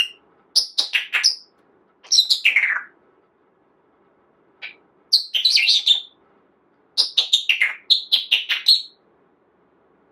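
Pet parrot chirping and whistling in five or six short spells with gaps between them. About two seconds in comes a whistle that slides down in pitch, and the calls stop about a second before the end.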